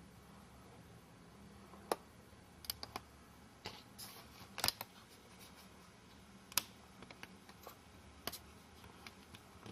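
Faint, irregular sharp clicks and taps, about a dozen spread unevenly over the stretch, the loudest about two seconds in and near the middle, against a low steady room hum.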